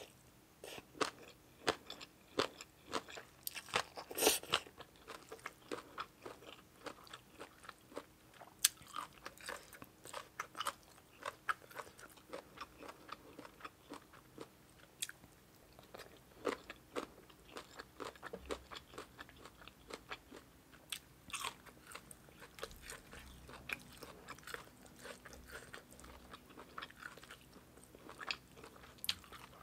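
A person eating close to the microphone: quiet chewing with many short, crisp crunching clicks as she works through spicy papaya salad (som tam pla ra) with rice noodles and small fermented pork balls.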